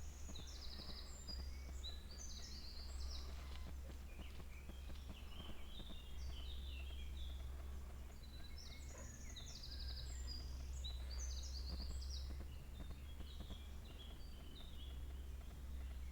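Songbirds singing: two bouts of quick high chirps and rapid trills stepping down in pitch, in the first few seconds and again from about eight to twelve seconds in, with scattered calls between. A steady low rumble runs underneath.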